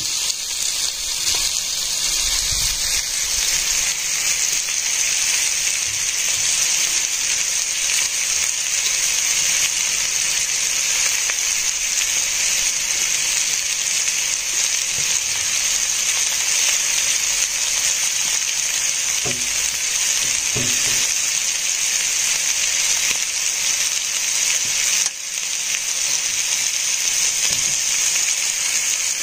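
A steady, even high-pitched hiss that runs without a break, dipping briefly near the end, with a couple of faint knocks about two-thirds of the way through.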